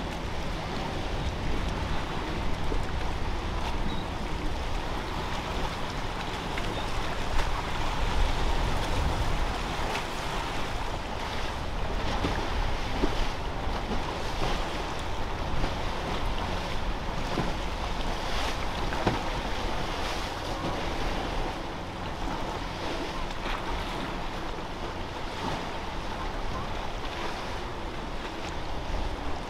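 Steady wind buffeting the microphone over surf and breaking waves, with the low drone of boat engines mixed in.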